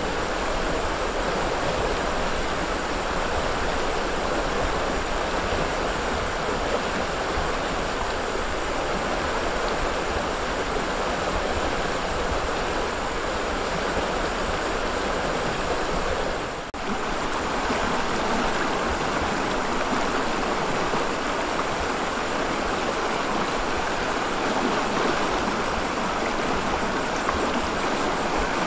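Shallow river rushing steadily over stones and through riffles. It drops out for a moment a little past halfway.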